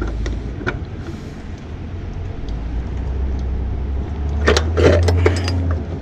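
Metal wrenches clicking and clinking on the fitting as a new AC high-pressure switch is tightened, with a cluster of sharp clicks about four and a half seconds in. Under it a steady low rumble stops just before the end.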